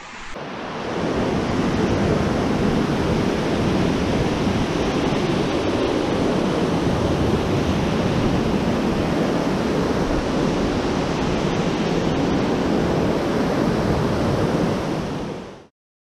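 Whitewater mountain river rushing over boulders: a steady, loud rush of water that builds up over the first second and cuts off abruptly just before the end.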